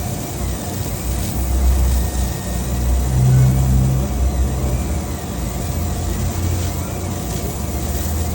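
Laser cutting machine running: a steady low hum from its fans and pumps, with faint whines from the stepper motors rising and falling in pitch again and again as the head moves.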